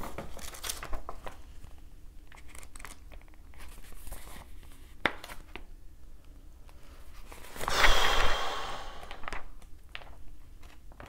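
Paper being handled: scattered light rustles and clicks, with a louder crinkling rustle lasting about a second, some eight seconds in.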